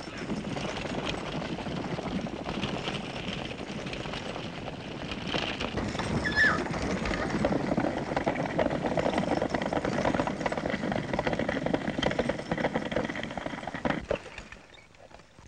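Galloping hooves of a bolting two-horse team and the rattle of the buggy they pull, with a brief high note about six seconds in. The clatter dies away a second or so before the end as the horses are pulled up.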